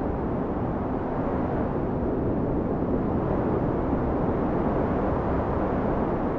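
Steady, even rumbling noise, strongest in the low range, with no separate knocks or calls standing out.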